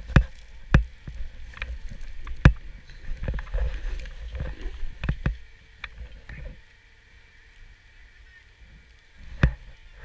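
Handling and wind noise on a worn action camera: sharp knocks and thuds come at irregular intervals over a low wind rumble. The rumble is stronger in the first six seconds and quieter from about seven seconds in.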